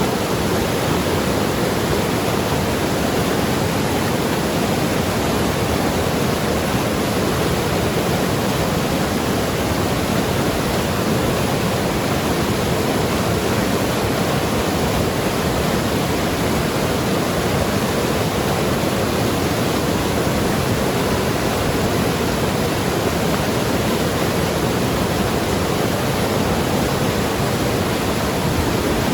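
Mountain river tumbling over rocks, a steady, unbroken rush of flowing water.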